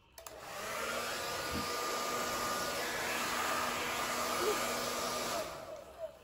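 Handheld hair dryer on its high setting, switched on, building up over about a second and running steadily, then switched off and winding down near the end.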